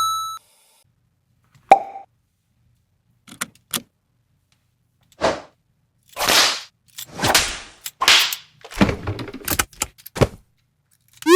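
A string of added cartoon sound effects: a short beep, a pop and a few clicks, then several whooshing swishes and knocks, ending with a fast rising whistle.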